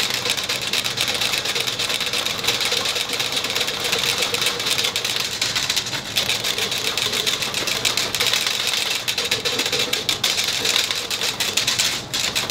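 A small electric motor-driven pump runs steadily with a constant high whine, over fast rattling scrapes of a whisk stirring calf milk replacer in a metal pail.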